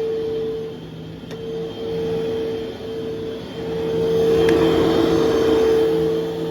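Vacuum cleaner running with a steady motor hum, its loudness swelling and dipping as it is worked across the floor, with a few faint clicks.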